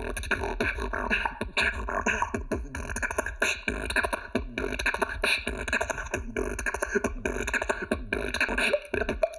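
Beatboxing: a dense, continuous stream of mouth-made percussion, clicks and pitched vocal sounds, built like chopped-up samples such as water drops and inhaled breaths.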